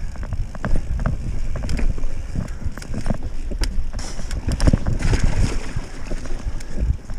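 Mountain bike descending fast over a rough, rocky grass trail: wind buffets the camera microphone with a heavy rumble while the tyres hit stones and the bike's chain and frame rattle and click many times. A louder hiss comes in for a second or so past the middle.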